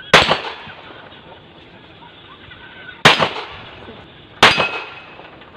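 Three shots from a .45-calibre pistol: one just after the start, then two more about three and four and a half seconds in, each followed by a short echo.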